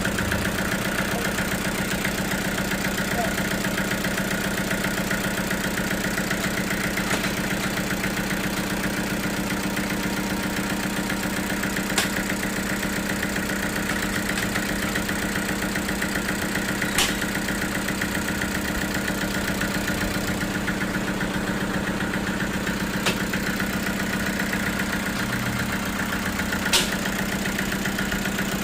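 Sawmill machinery running steadily with an even engine-like hum, broken by four short sharp knocks spaced several seconds apart.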